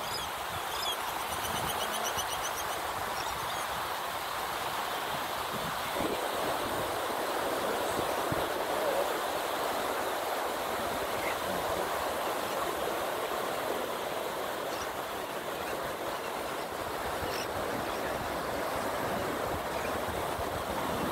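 Steady wash of ocean surf, an even continuous rushing noise, with a brief faint high chattering call about two seconds in.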